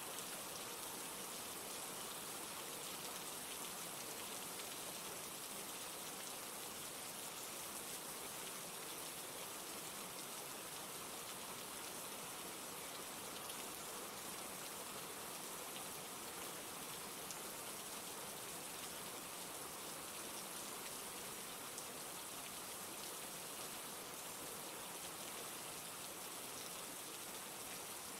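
Steady rainfall, an even hiss of many drops falling on surfaces, with faint scattered drop ticks.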